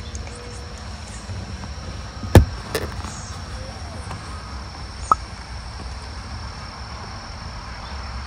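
Outdoor background noise: a steady low rumble with a faint, steady high-pitched whine. A sharp knock comes about two and a half seconds in, a fainter knock just after it, and a short click about five seconds in.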